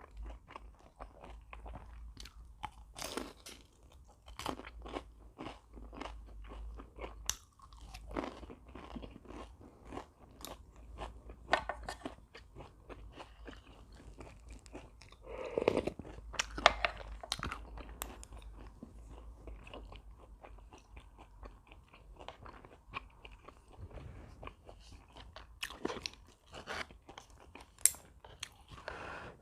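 Close-miked eating: a person biting and chewing crunchy food, with many small irregular crunches and mouth clicks throughout and a louder stretch of bites about halfway through.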